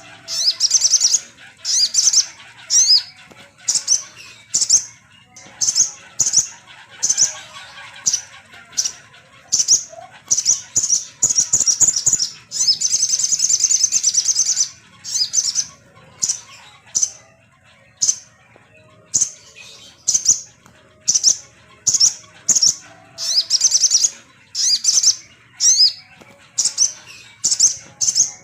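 Sogon songbird calling: short, high chirps repeated about once or twice a second, breaking into a fast continuous trill for a few seconds in the middle. This is a lure song, played to rouse caged sogon birds into singing.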